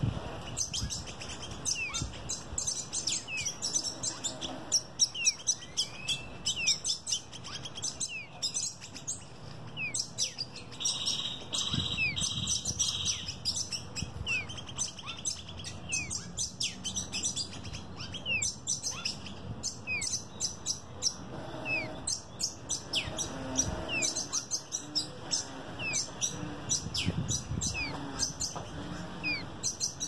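A fledgling songbird chirping over and over, short sharp high calls several a second without a break. About eleven seconds in there is a brief buzzy trill in three short pulses.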